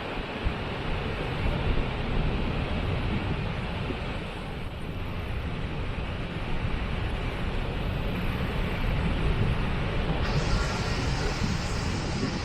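A waterfall rushing: a steady, dense hiss over a heavy, churning low rumble. The hiss grows a little brighter about ten seconds in.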